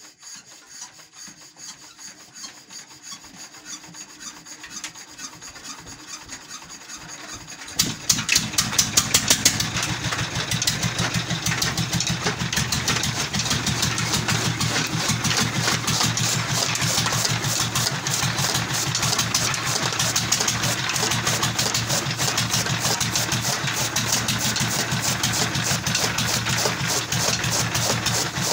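A quieter, rhythmic rubbing and scraping, then about 8 seconds in a loud Peter single-cylinder diesel engine starts with a few sharp bangs and settles into a steady run with a fast, even beat. It is the engine that drives the toka chaff cutter.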